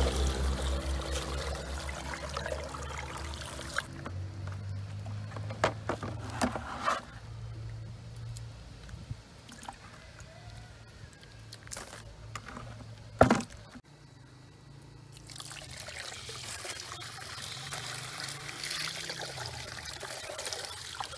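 Muddy clay slurry poured from a bucket through a fine mesh screen: a steady rushing pour that thins to trickles, broken by a few sharp knocks, the loudest about thirteen seconds in. Near the end a second bucket pours and the rushing comes back.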